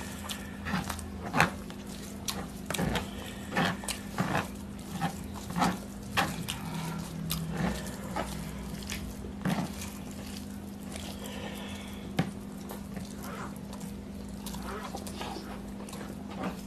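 Close-up eating sounds of two people eating rice and curry by hand: fingers squishing and mixing rice on plates, chewing and lip-smacking, a run of short wet clicks that thins out after about ten seconds, over a steady low hum.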